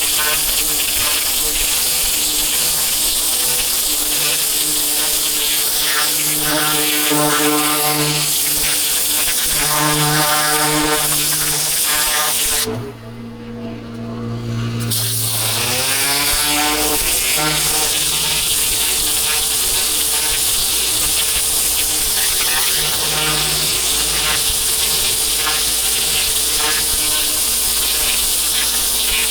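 Pressure washer running: an engine's steady buzz under the loud hiss of the high-pressure water jet. About 13 seconds in the spray stops for roughly two seconds, leaving the engine at a lower hum, then resumes as the engine's pitch rises again.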